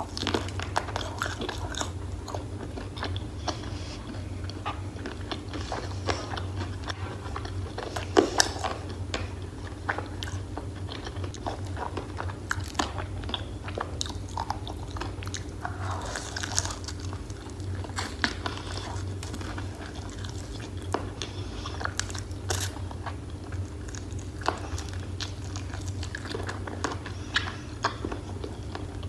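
Close-miked biting and chewing of crispy fried chicken: repeated crunches of the breading with wet chewing between them, the sharpest crunch about eight seconds in.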